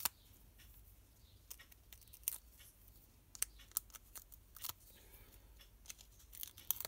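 Faint, scattered clicks and crackles of paper handling as adhesive foam dimensionals are peeled from their backing sheet and pressed onto the back of a piece of patterned paper, with a few quick clicks near the end.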